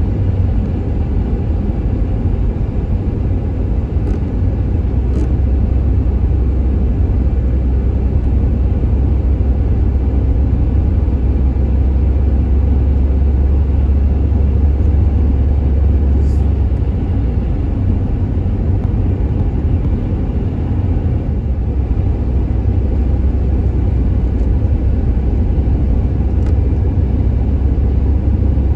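Road noise inside a moving car's cabin: a steady low rumble of tyres and engine at cruising speed, its deepest part easing a little about two-thirds of the way through.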